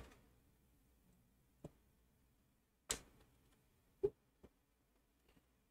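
Near silence broken by about four short, faint clicks, the loudest a little after four seconds in.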